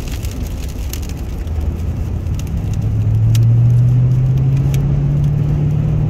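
Inside a Toyota Tundra pickup's cab: a steady low rumble of wind and road noise. From about halfway through, the engine's hum rises in pitch as the truck accelerates, with scattered light ticks.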